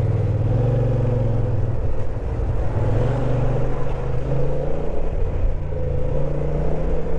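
Motorcycle engine running at a steady riding speed, its pitch shifting slightly, with continuous road and wind noise.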